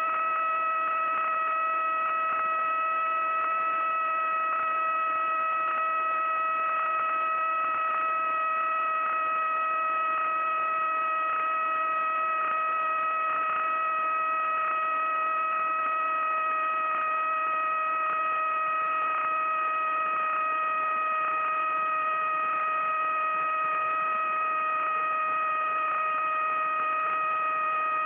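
A steady, unchanging high-pitched hum with a constant pitch.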